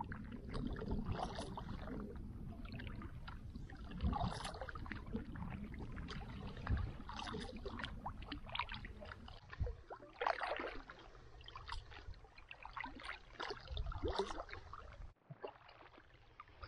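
Water lapping and splashing against a canoe, with irregular small splashes and drips. A low rumble sits under it and drops away about halfway through.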